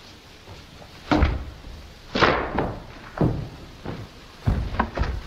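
A series of heavy thuds and knocks, about five of them roughly a second apart, each dying away quickly.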